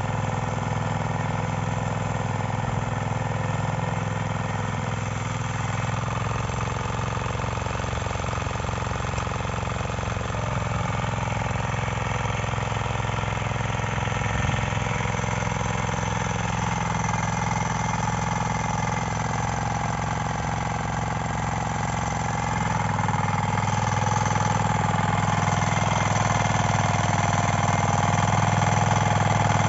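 9 HP power weeder's engine running steadily as it tills the soil. A brief knock about halfway through, and the engine grows louder in the last part.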